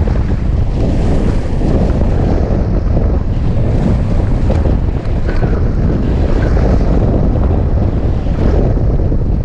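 Airflow over a hang glider in flight, heard as a loud, steady, low rumbling buffet of wind on the glider-mounted camera's microphone, with a brief dip about five seconds in.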